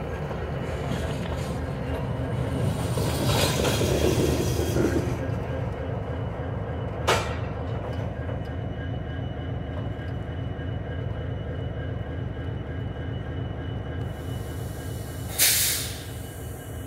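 Norfolk Southern EMD SD60E diesel locomotive rolling slowly past with a covered hopper: a steady engine rumble with wheel noise on the rails, swelling with some squeal a few seconds in. A sharp clank comes about seven seconds in, and a short burst of hiss comes near the end.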